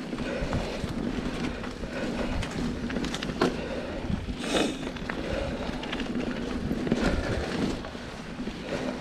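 Mountain bike rolling along a dirt singletrack trail: steady tyre noise with frequent small knocks and rattles, and a louder clatter about halfway through.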